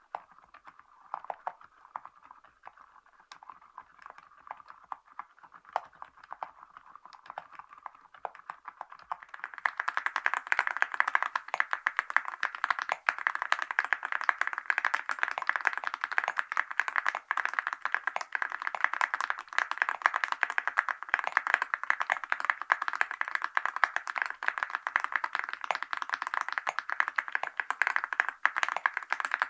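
Typing on a mechanical keyboard fitted with Awekeys gold metal keycaps, a dense run of key clicks and clacks. It is softer and sparser for about the first third, then much louder and faster for the rest.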